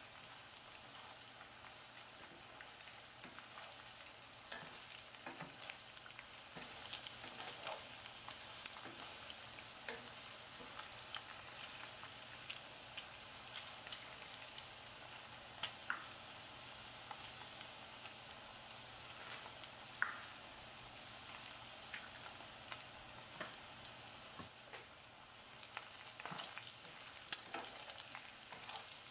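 Pork pieces frying in hot oil in a pan, a steady sizzle dotted with frequent small pops as they fry toward golden brown and crisp. A wooden spatula stirs them, with a few sharper clicks against the pan.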